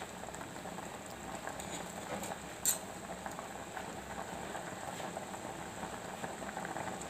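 Pot of macaroni in water at a rolling boil, a steady bubbling. A light metal click comes at the start and another just under three seconds in: the steel spoon tapping the perforated skimmer as the pasta is checked for doneness.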